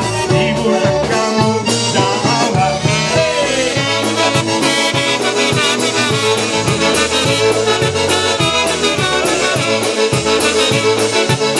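Live polka band playing an instrumental break: trumpet and saxophone carry the melody over accordion, electric bass and drums, with a steady beat of bass notes and cymbals.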